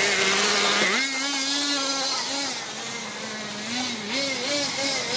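Two-stroke O.S. nitro engine of a modded HPI Nitro King monster truck running as the truck drives, its pitch rising and falling with the throttle: a sharp rise about a second in, then several short blips near the end.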